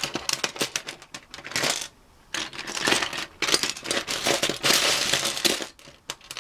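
Loose plastic Lego pieces clattering and rattling as a hand rummages through a pile of them, with a short pause about two seconds in.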